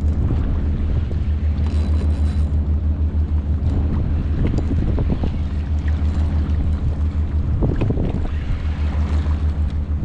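Wind on the microphone and choppy sea water around a kayak, a steady low rumble with a faint hum in it, and a few brief knocks or splashes about halfway through and again near the end.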